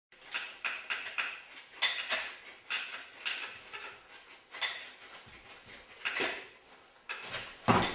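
Irregular knocks, clicks and creaks from wooden chairs and a walking-stick umbrella as a man stands on the umbrella bridged between two chair seats, with a heavier thump near the end.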